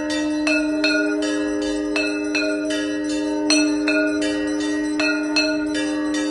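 Hindu temple aarti bells ringing, struck about twice a second with overlapping ringing tones, over a steady low tone held underneath.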